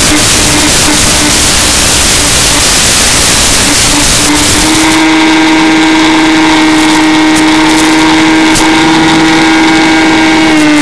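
Electric pusher motor and propeller of a Mini Skywalker RC plane running at a steady pitch, heard through the onboard FPV camera's audio. For the first four seconds or so a loud hiss of radio static breaks up the motor sound, then it comes through clean, dipping slightly in pitch near the end.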